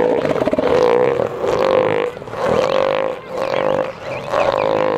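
Southern elephant seals calling: about four drawn-out, throaty calls of a second or so each, with short breaks between them.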